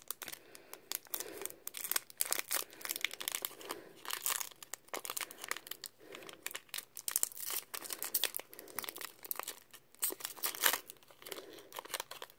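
Foil Pokémon booster pack wrapper crinkling and crackling irregularly as it is handled, then tearing as the top of the pack is ripped open near the end.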